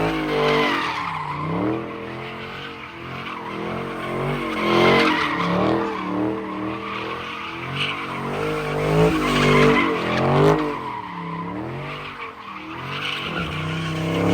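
A car's engine revving up and down over and over while its tyres squeal and skid: a car sliding round with the rear wheels spinning.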